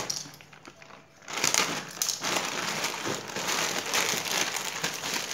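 Plastic courier mailer bag crinkling and rustling as it is handled and pulled open. It is quiet for about the first second, then runs in a dense, irregular crackle.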